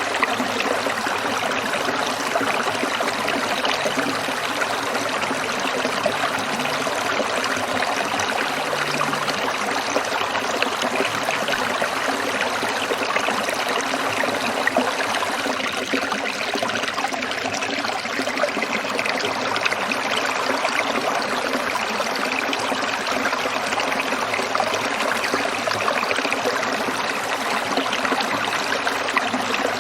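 Stream water trickling and splashing over rocks in a steady, even rush.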